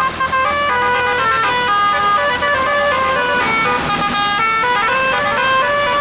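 Bus's Basuri telolet musical horn playing a melody, quick stepping horn notes one after another without a break.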